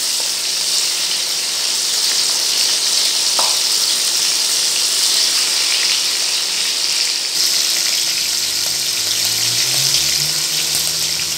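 Prawns shallow-frying in hot mustard oil in a nonstick pan: a loud, steady sizzle.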